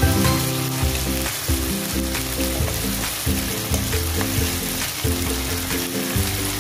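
Chicken pieces sizzling as they fry in a nonstick pan, stirred with a wooden spatula that scrapes now and then. Background music with low sustained notes plays along with it.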